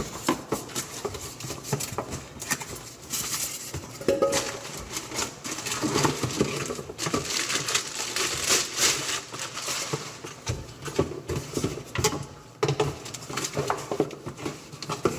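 Irregular clatter, knocks and rustling from the new garbage disposal and its metal and plastic parts being handled.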